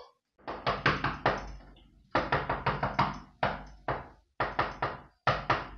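Repeated knocking on a paneled wooden door, in five quick bursts of three to six knocks with short pauses between.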